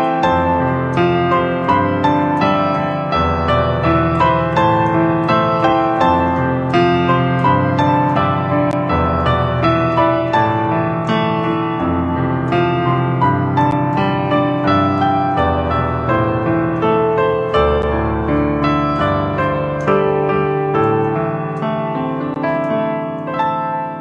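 Solo piano playing a slow pop-ballad passage with no singing: chords and a melody line struck in a steady, regular flow, softening toward the end.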